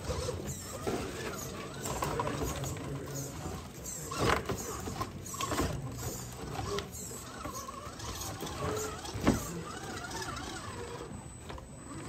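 1/10-scale RC rock crawler's electric motor and geared drivetrain whirring in stops and starts as it crawls over rocks, with a few short knocks, the sharpest about four and nine seconds in.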